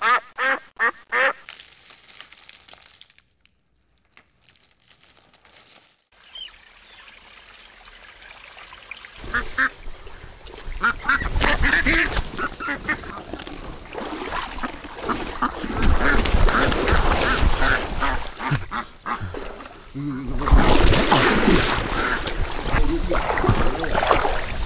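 Domestic ducks quacking, a quick run of quacks in the first second, then scattered quacks later. In the second half, noisy rustling and splashing through brush and shallow water grows loud.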